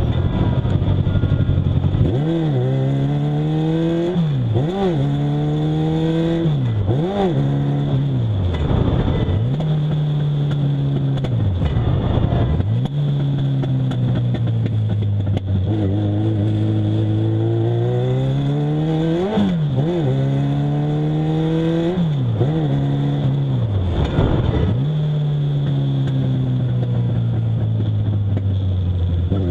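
Legends race car's motorcycle-derived engine at racing speed, heard from inside the cockpit. The revs keep climbing and falling through shifts and corners, with sharp dips and quick recoveries several times and a longer steady pull in the middle.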